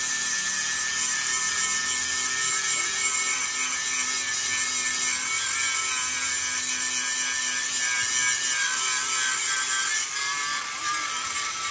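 Angle grinder with an abrasive disc cutting into a steel truck chassis rail: a steady high whine over a grinding rasp, the pitch and level dipping slightly near the end.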